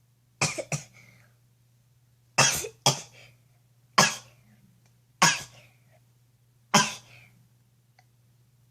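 A girl's fit of sneezing, set off by Vaseline put up her nose: seven sharp bursts in about six and a half seconds, the first ones coming in quick pairs. A steady low hum runs underneath.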